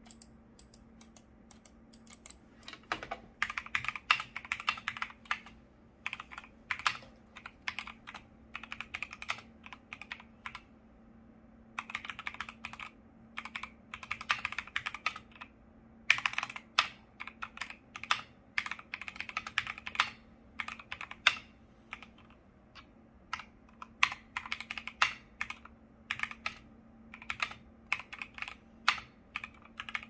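Typing on a custom-built KBD75 V3.1 75% mechanical keyboard: runs of quick keystrokes with two short pauses, about 11 and 22 seconds in. It has a muted, smooth typing sound that its builder calls creamy rather than clacky.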